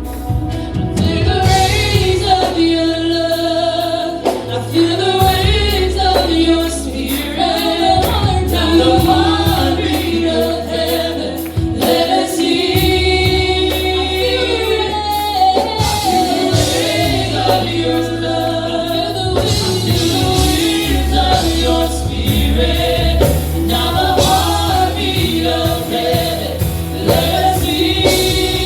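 Gospel worship song: a choir singing over a band with a steady beat and sustained bass.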